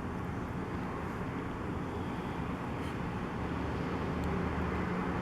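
Steady low rumble of street traffic, growing a little louder near the end.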